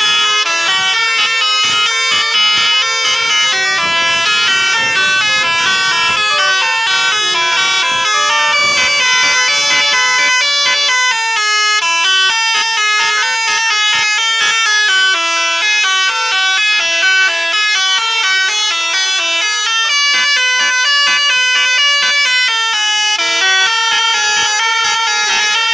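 Indonesian bus telolet horns, multi-tone musical air horns, playing continuously in quick stepping melodic phrases with several notes sounding together.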